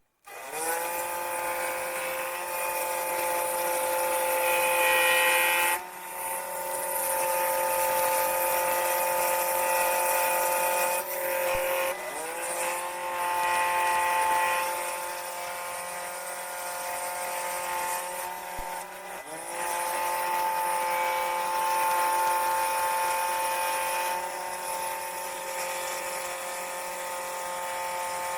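Electric scroll saw running while cutting wood: the motor spins up at the start, then runs steadily. Its pitch sags briefly and recovers about three times, roughly every six seconds.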